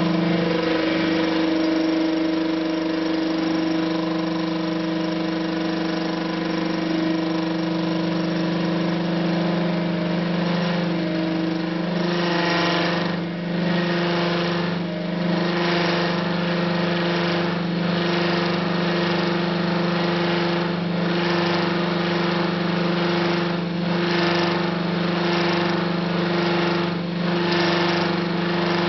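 Lathe turning a hardened steel ballscrew with a CBN-tipped tool: a steady machine hum under the hiss of the cut. From about halfway through, the cutting noise pulses about once a second.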